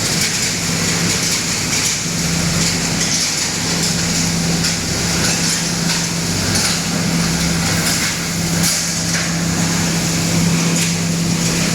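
Wood pallet crusher running loud and steady, its motor giving a constant low hum under a continuous hiss, with scattered sharp knocks of wood being broken up inside the machine.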